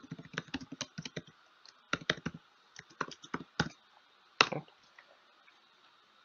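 Typing on a computer keyboard: uneven bursts of quick keystrokes for about four seconds, then one louder click.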